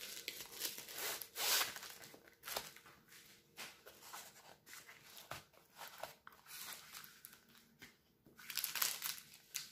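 Paper and plastic rustling and crinkling as a diamond-painting canvas and its wrapping are handled and spread out flat on a table. The rustles come irregularly, loudest about one and a half seconds in and again near the end.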